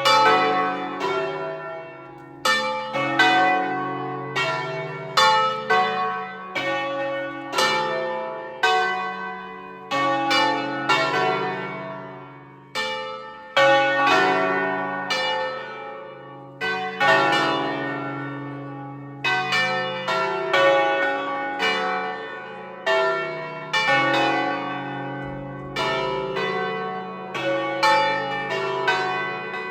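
Church bells of Turin Cathedral ringing the noon peal: several bells of different pitch struck over and over in an irregular, overlapping pattern, each stroke ringing on as the next one sounds.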